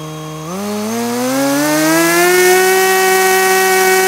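T-Motor 2310 2200 kV brushless motor spinning an APC 6x4 propeller on a 3S battery during a bench wattage test. Its whine rises in pitch as the throttle is eased up, with a step about half a second in, then holds steady at low power from about two seconds in.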